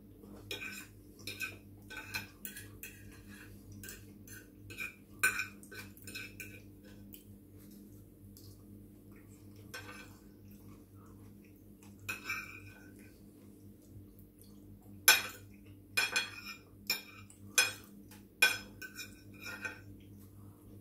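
Metal fork scraping and clinking against a ceramic plate, picking up the last pieces of pasta, in irregular clusters of light ringing clinks. The sharpest, loudest clinks come in the last few seconds.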